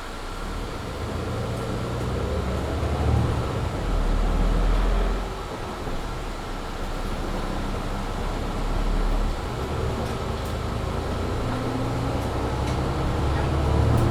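Mercedes-Benz Citaro C2 G articulated bus accelerating hard with its Voith automatic gearbox, heard from inside the bus. The engine builds up, drops back at a gear change about five seconds in and again about nine seconds in, then builds again, over the loud cabin heater.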